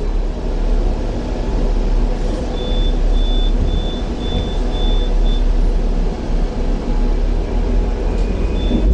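Hong Kong double-decker tram pulling away and running along its rails: a steady low rumble of motor and wheels. About two and a half seconds in, six short high beeps come at roughly two a second.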